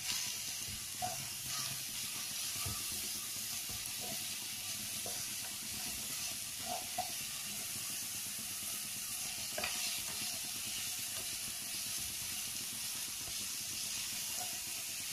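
Chopped onion, carrot and cabbage sizzling steadily in oil in a frying pan, with a few faint scrapes and taps of a slotted spatula as the vegetables are stirred.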